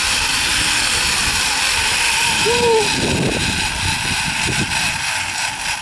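Zip line trolley pulleys rolling along the steel cable: a loud, steady whirring hiss over a low rumble, which drops away near the end.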